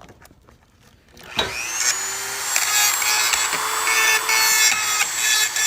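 Dremel rotary tool with a diamond cutting bit starting up about a second and a half in, then running at high speed with a steady high whine and a grinding hiss as it cuts through a metal heater-core hose clamp.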